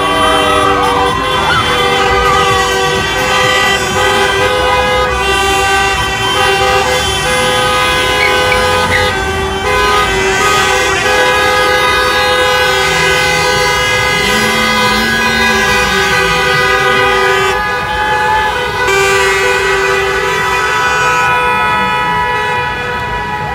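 Many car horns honking together in long, overlapping blasts at several different pitches, sounding continuously in celebration, with voices shouting underneath.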